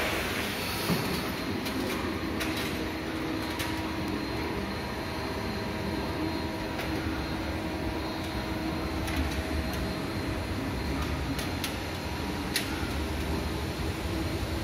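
Steady machinery hum with a faint low drone, a few light clicks scattered through it.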